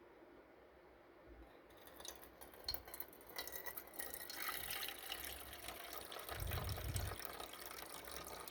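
Water being poured into a mug, starting about a second and a half in and running on steadily.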